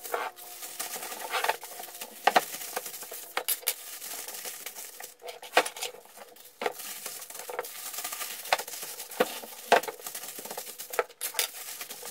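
Aluminium foil crinkling and crackling as it is wrapped and pressed by hand around a clay tagine, with irregular sharp crackles, some louder than others.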